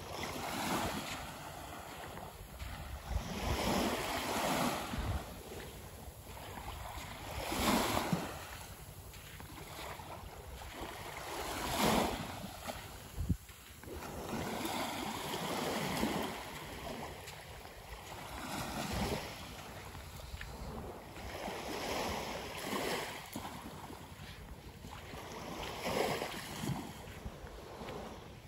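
Small waves lapping on a sandy shore, a wash of surf swelling and fading every three to four seconds.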